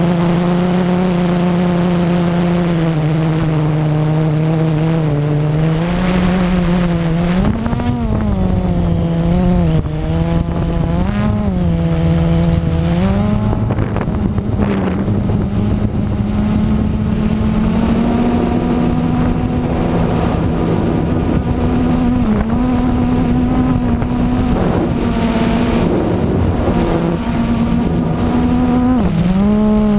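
Blade 350 QX quadcopter's four brushless motors and propellers humming close to the microphone, heard from the aircraft itself. The pitch swoops up and down several times in the first half as the throttle changes, then holds a little higher, with a brief dip near the end.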